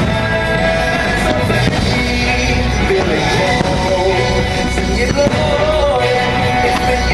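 Fireworks show soundtrack: music with singing, played steadily and loud.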